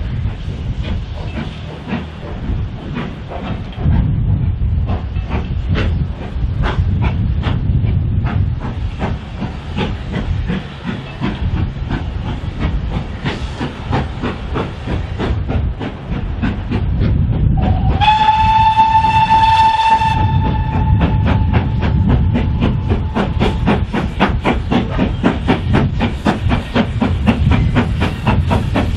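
GWR Manor-class 4-6-0 steam locomotive No. 7827 working a train, with steady exhaust beats and the wheels clicking over the rail joints. About two-thirds of the way through it gives one steam whistle blast of about two seconds.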